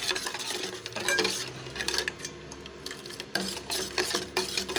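Metal spoon clinking and scraping against a kadai while tea is stirred, in many short irregular knocks.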